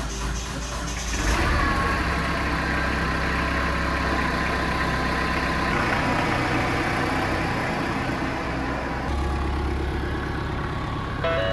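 Kubota B-series compact tractor's diesel engine running, picking up revs about a second in and then pulling steadily as the tractor is driven off on its first run after a transmission rebuild.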